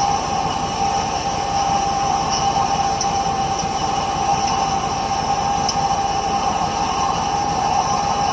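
Steady, loud machine noise with a constant high whine over a rumbling hiss, unchanging throughout.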